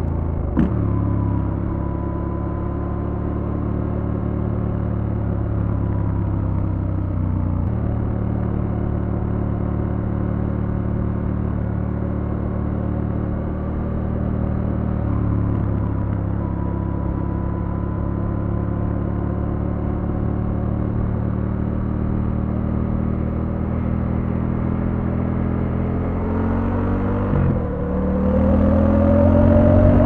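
Triumph Scrambler 1200 X's 1200 cc parallel-twin engine running under way at steady revs, with a quick gear change about half a second in where the pitch drops. Near the end the revs climb, dip once at a shift, and climb again as the bike accelerates.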